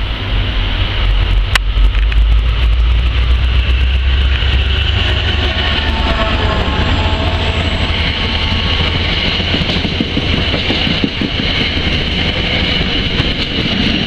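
Commuter train's silver passenger coaches passing close by, with a steady rumble and rattle of wheels on rail. A deep low rumble eases about five seconds in, and a sharp click comes about a second and a half in.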